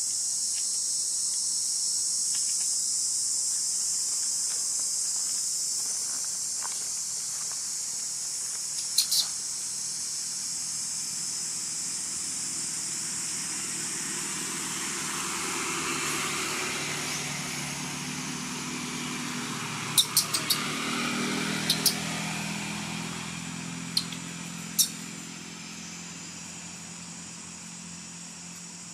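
Insects buzzing in a steady, high-pitched chorus that fades in the second half. A low drone swells and falls away in the middle, and a few sharp clicks sound, most of them in the later part.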